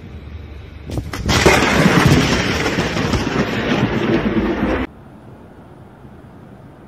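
A very close lightning strike: a sharp crack about a second in, then a loud, crashing thunderclap that carries on for about three and a half seconds and cuts off abruptly. A quieter steady hiss follows.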